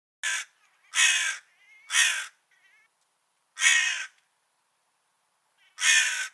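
A crow cawing: five harsh caws, the first one short, the rest spaced about a second or two apart.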